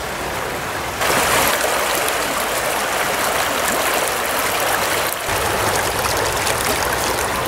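Rushing water of a shallow, rocky stream flowing over stones: a steady wash of water noise that steps up louder about a second in.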